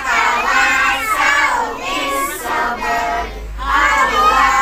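A group of young children singing together, in phrases with a short break about three and a half seconds in.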